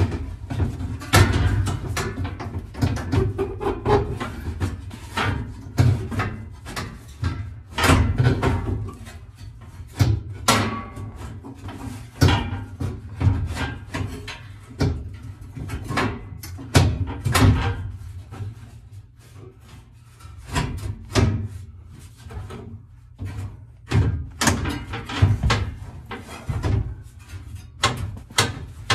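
Irregular knocks, bumps and clunks from work inside the stripped metal rear of a 1969 Mustang fastback, around the package tray area under the rear window, with some sharper, louder hits among them.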